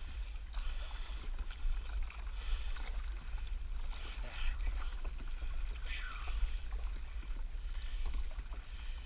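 Kayak paddle strokes, the blades dipping and splashing in the water about once a second, over a steady low rumble.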